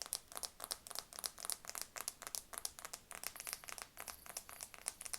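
Rapid, irregular ASMR tapping and crinkling close to the microphone, several light sharp taps a second.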